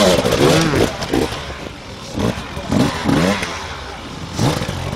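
Two-stroke Husqvarna enduro motorcycle revving in short throttle blips, the pitch rising and falling about once a second, as it picks its way over logs.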